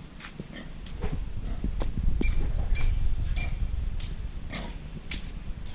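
Pig sounds: a low rumbling grunt-like noise with three short, high-pitched squeaks about half a second apart near the middle.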